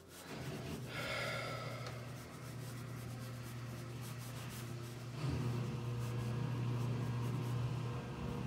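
A laundry machine starts up with a steady low hum, which gets louder about five seconds in. A colored pencil scratches on newsprint over it.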